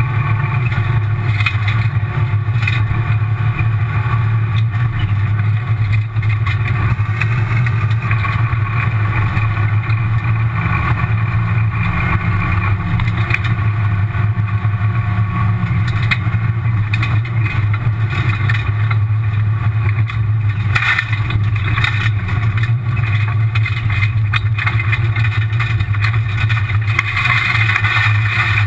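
Rally car driven at pace on a gravel stage, heard from inside the cabin: the engine runs loud and steady under a constant rush of tyre and gravel noise, with scattered short knocks.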